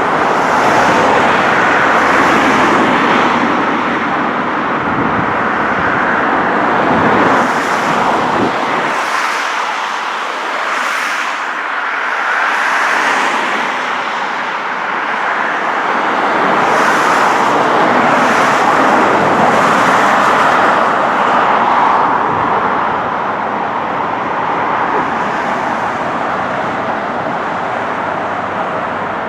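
Road traffic: cars passing one after another, their tyre and engine noise swelling and fading in waves.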